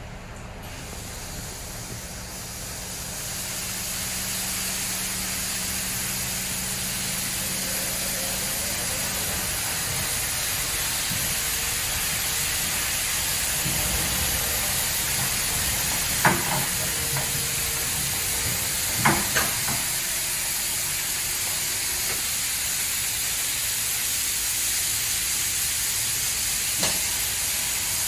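Superior Sidetrac 700 touch-free car wash spraying water: a steady hiss of spray that builds over the first few seconds and then holds, with a few sharp knocks partway through.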